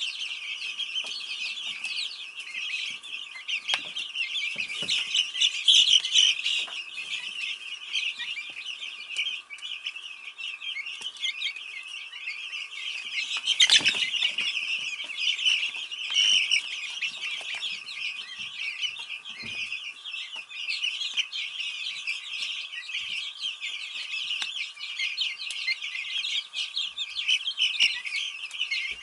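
A brood of young Easter Egger chicks peeping and chirping without pause while they peck at bread, with one thump about halfway through.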